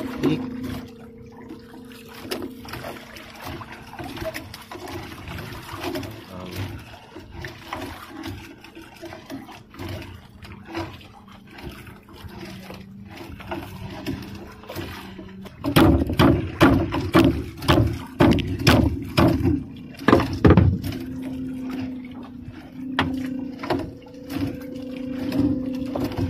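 A wet fishing net hauled by hand over a boat's gunwale: water dripping and splashing, with small knocks of net and gear against the hull, over a steady motor hum. About two thirds of the way in comes a louder stretch of splashing and knocking lasting some five seconds.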